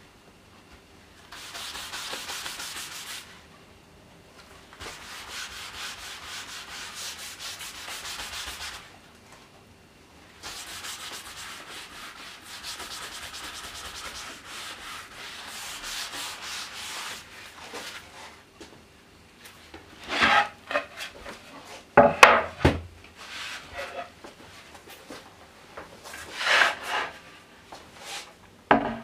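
Plywood panel being hand-sanded with sandpaper: a rubbing hiss in runs of a few seconds with short pauses between them. From about two-thirds of the way through, the sanding gives way to several sharp knocks and clatters of wood being handled.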